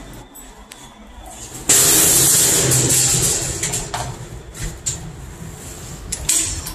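Commercial entrance door being opened with a tool worked at its lever-handle latch: a sudden loud rushing noise about two seconds in that fades over the next two seconds, then a few short clicks of the latch and handle.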